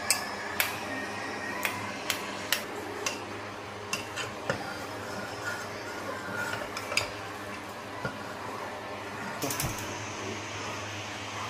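Metal ladle stirring thick rice-and-milk kheer in a metal pot, clinking and scraping against the pot's sides in irregular sharp knocks, over a steady low hum. The stirring is kept up so the ground rice does not form lumps.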